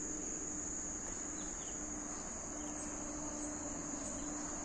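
Crickets trilling in one unbroken, high-pitched drone, with a faint low steady hum beneath.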